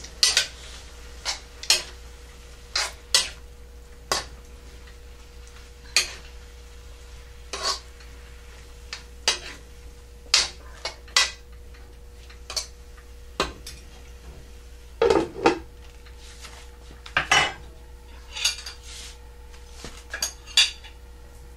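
A cooking utensil knocking and scraping against a wok while pepper steak is stirred and mixed, in short, irregular clanks, a few of them louder clusters.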